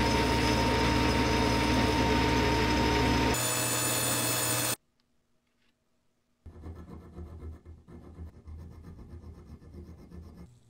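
A power tool runs steadily and loud, then cuts off sharply after about five seconds. After a short pause, uneven scraping strokes of something rubbed against the rusty metal of an old adjustable wrench follow.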